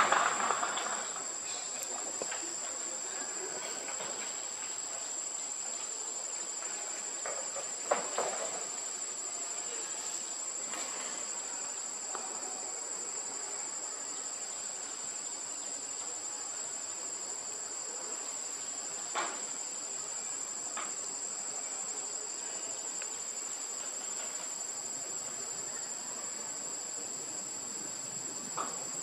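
Steady, shrill insect chorus with one unbroken high tone, a few brief sharp sounds breaking in, the clearest about eight seconds in.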